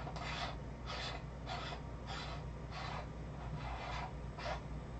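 A threaded attachment being screwed onto the front of a camcorder's lens by hand: a short dry rasp with each twist, about three every two seconds.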